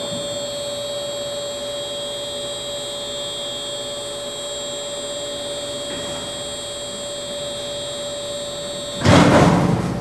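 Dough trough hoist's drive running steadily with a hum and fixed whine as it lifts and tips the stainless-steel trough over the hopper. About nine seconds in, a sudden louder rushing noise rises and fades over about a second.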